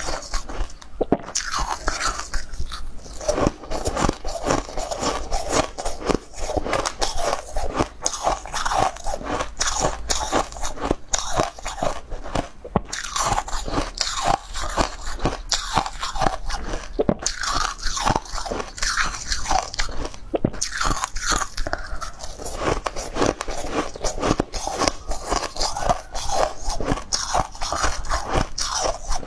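Close-miked biting and chewing of frosted pink ice balls: dense, rapid crunching and crackling, one bite after another.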